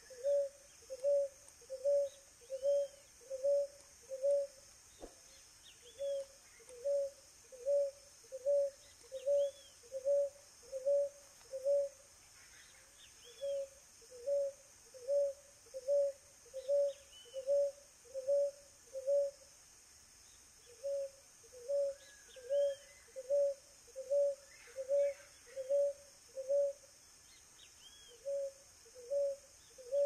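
Ruddy ground-dove (Columbina talpacoti) cooing: one low coo repeated evenly, a little over once a second, in long runs broken by short pauses. Faint chirps of other birds sound behind it.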